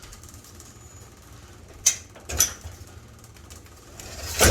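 Sharp clicks and handling noises from plastic sheeting being put up, with a louder rustling near the end, over a steady low hum.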